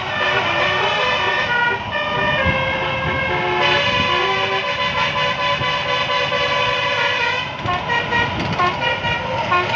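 A bus's multi-trumpet telolet basuri air horn playing a melody. It steps through notes, holds a long chord from about four seconds in, and then sounds short quick notes near the end, over engine and road noise.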